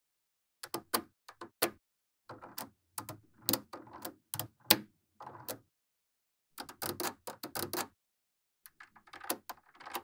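Magnetic balls clicking and snapping together, with short rattling clatters, in four bursts separated by brief silent pauses.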